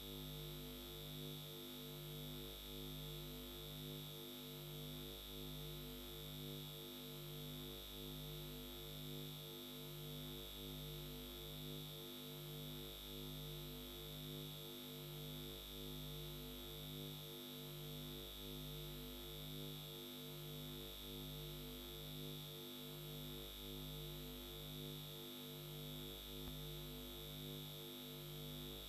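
Faint steady electronic hum and buzz: a few fixed low tones throbbing in an even, regular pulse over a low hum, with a constant high whine on top.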